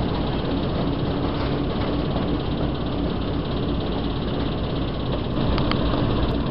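Diesel shunting locomotive idling, a steady low rumble with a faint engine knock.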